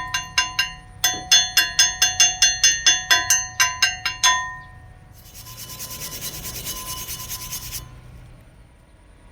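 Steel being struck repeatedly with a hammer, each blow ringing metallically, about three or four blows a second, stopping about four seconds in. A few seconds of steady scraping on metal follow, typical of cleaning a weld.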